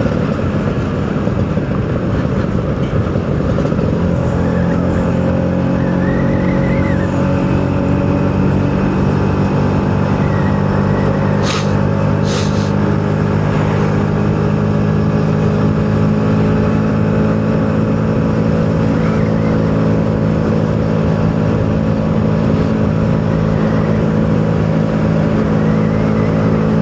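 Two-stroke engine running steadily as it is ridden along, its note rising a little in the first few seconds and then holding, with wind rushing past. Two short sharp clicks come about halfway through.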